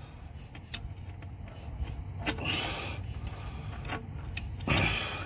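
Channel-lock pliers working at a radiator hose clamp: scattered small metal clicks and scraping, with a longer rustling scrape about two and a half seconds in and a heavier one near the end.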